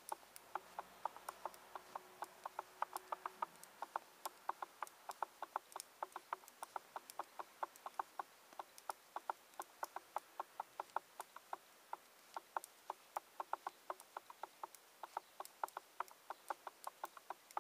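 Metal knitting needles clicking lightly against each other as knit and purl stitches are worked along a row. The clicks come quickly and fairly evenly, a few a second, with a few brief pauses.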